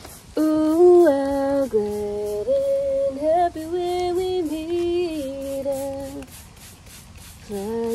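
A woman humming a tune to herself: held notes that step up and down, breaking off about six seconds in and starting again near the end.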